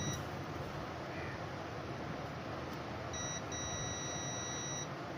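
Digital multimeter's continuity buzzer beeping as the probes touch a circuit board: a brief beep at the start, then about three seconds in a short beep followed by a longer steady one of about a second and a half. The beep signals a low-resistance path between the probe and ground, the sign of a shorted circuit.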